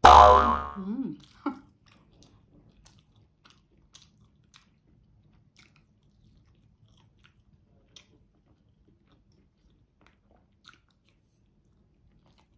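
Eating spaghetti carbonara off a spoon: a loud slurp in the first second, then soft chewing with faint scattered mouth clicks.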